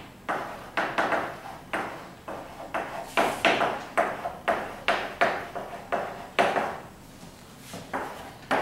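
Chalk tapping and scraping on a blackboard as a line of words is written: a quick run of sharp strokes, about two a second, with a short pause near the end.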